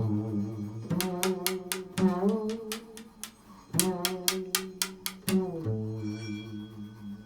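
Improvised instrumental tone-poem music: sustained low notes that shift pitch every second or two, overlaid with quick runs of sharp plucked or struck notes.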